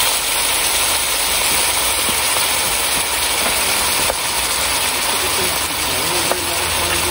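Soup with mackerel and vegetables simmering in a pan: a steady sizzling hiss, with a couple of light taps of a wooden spatula against the pan as the fish is stirred and broken up. A low hum comes in near the end.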